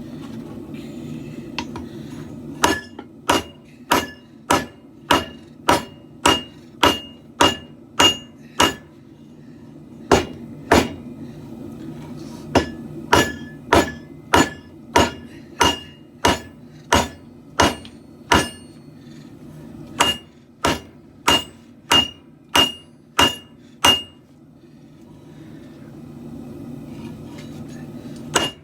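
Hand hammer striking a hot katana blade on an anvil in runs of about two blows a second, each blow with a bright metallic ring, pausing briefly between runs. A steady low hum runs underneath.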